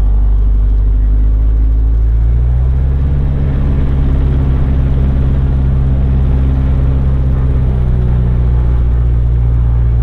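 The 200 hp four-cylinder Lycoming IO-360 engine of a Mooney M20J running at low power, heard inside the cabin as a steady low drone. Its pitch shifts slightly about two and a half seconds in.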